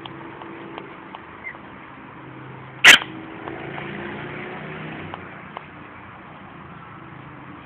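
A vehicle engine runs with a steady low hum, with a few light clicks, and one loud, sharp knock about three seconds in.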